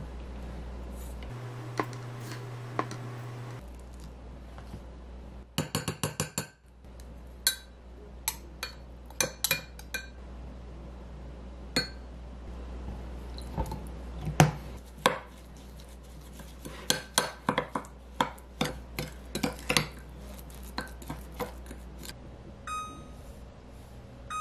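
A metal spoon clinking and scraping against a glass measuring cup while seasonings are spooned in and stirred, with many sharp separate clinks and a quick run of rapid clicks about six seconds in.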